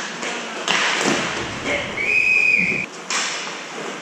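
Inline hockey play on a plastic sport-court floor: sticks and the puck clack against it. A referee's whistle sounds once near the middle, a single steady blast of about a second.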